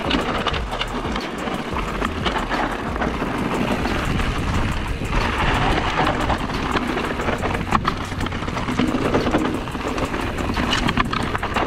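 Enduro mountain bike riding fast down a rough dirt trail: tyres rolling over dirt and leaves, the frame and chain rattling in quick clicks over the bumps, and wind rumbling on the microphone.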